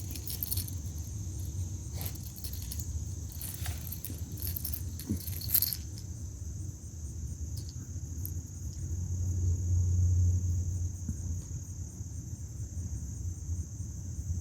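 Steady high drone of insects such as crickets. Light metallic clinks and rustles of handling sound through the first half, and a low wind-like rumble swells briefly past the middle.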